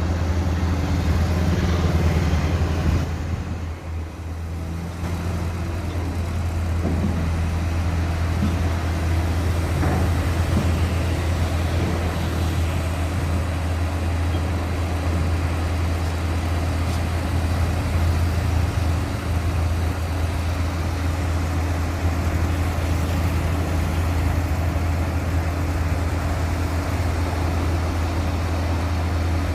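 Heavy diesel engine of a rotary drilling rig running with a steady low drone, dipping briefly a few seconds in before settling back to the same level.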